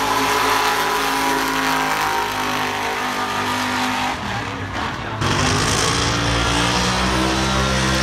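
Race car engines running loud at full throttle down a drag strip. The sound dips briefly about four seconds in, then comes back loud.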